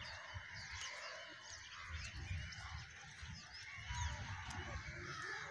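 A large flock of crows calling overhead: many short calls overlapping throughout, over a low rumble.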